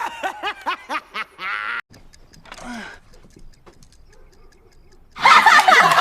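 A person giggling in a quick run of about eight short high-pitched laughs, followed by faint ticking. Loud music and voices cut in about five seconds in.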